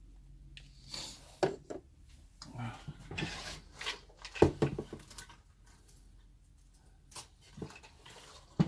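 Irregular small scrapes, taps and knocks of two-part epoxy being dispensed and stirred by hand, with a quieter gap in the middle.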